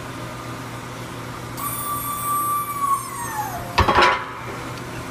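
Air-over-hydraulic bottle jack (20-ton) pumping as it drives a press brake ram: a whine that holds its pitch, then drops as it slows and stops. A loud, sharp clatter follows about four seconds in.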